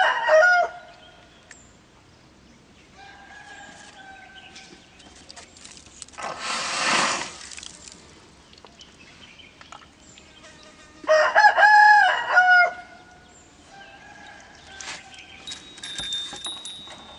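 Rooster crowing: one crow ends just after the start and a second loud, full crow comes about eleven seconds in, with fainter crows from farther off in between. About six seconds in there is a breathy rush of noise lasting a second or so.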